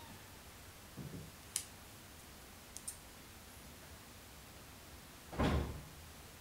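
A soft knock about a second in, a few light clicks, and a louder dull thump about five and a half seconds in, over a low steady room hum.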